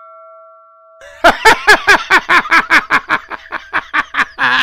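The tail of a single chime "ding" sound effect, the sin-counter bell, ringing with several steady tones and fading away over the first second. Then, from about a second in, a voice in loud, rapid repeated bursts, about six a second.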